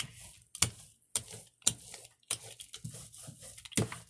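Paper laid on a Gelli plate being rubbed down by hand to pull a print: a series of short rubbing strokes across the sheet, about two a second.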